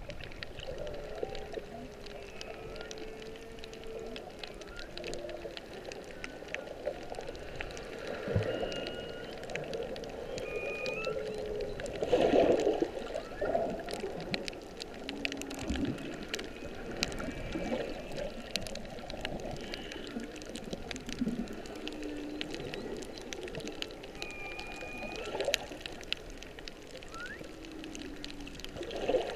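Humpback whale song heard underwater: long low moans that bend in pitch, with short higher whistle-like tones between them, over a steady crackle of clicks.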